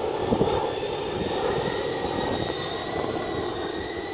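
Whine of the Lego EV3 electric motors driving the toy cart, a thin high tone that climbs slowly in pitch, over a steady rumbling noise from the small wheels rolling on asphalt.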